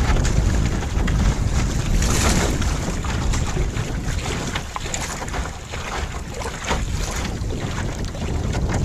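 Strong wind buffeting a smartphone microphone fixed to a sailing dinghy's gunwale, a heavy rumble, with water rushing and splashing along the hull in hissing surges, the loudest about two seconds in.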